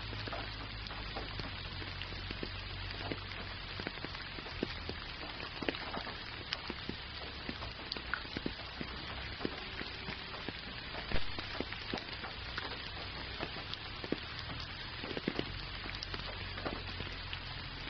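Steady rain falling, with individual drops landing close by as scattered sharp ticks; one drop stands out as louder about eleven seconds in. A steady low rumble runs underneath.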